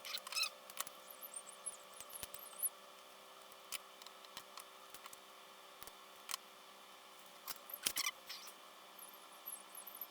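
Scattered small clicks and taps, with a few brief faint high squeaks near the start and near the end, over a steady faint electrical hum: the sound of small parts and tools being handled.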